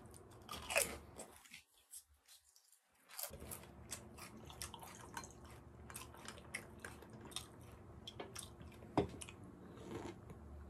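Potato chip crunched between the teeth at the start, then lager poured from a can into a glass, the foam fizzing with many fine crackling ticks. Near the end, a sip slurped off the head of foam.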